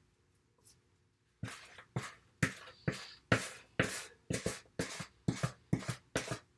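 Spatula scraping wet bread batter out of a plastic container in quick repeated strokes, about two a second, starting about a second and a half in.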